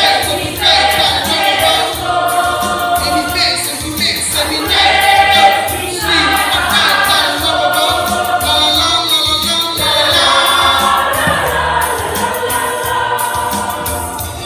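A choir singing a gospel hymn in harmony, holding long notes phrase by phrase.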